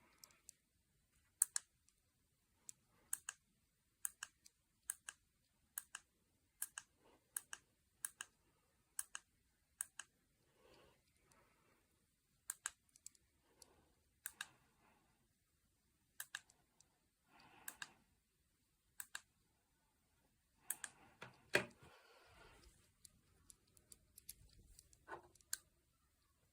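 Faint, scattered sharp clicks and taps, roughly one a second at an uneven pace, with a few brief soft rustles between them.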